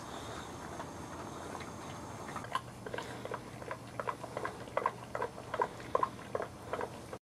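Small sounds from a litter of young boxer puppies: from about two and a half seconds in, an uneven run of short sharp squeaks and mouth smacks, about two or three a second, then a sudden cut-off near the end.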